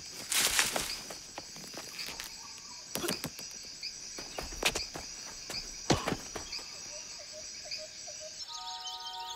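Forest ambience with steady insect chirring, broken by scattered thuds of running footsteps on dirt, the loudest about three, five and six seconds in. Music comes in near the end.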